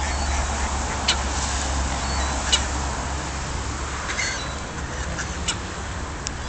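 Steady low outdoor background rumble with a few sharp clicks scattered through it and three faint, short, high chirps.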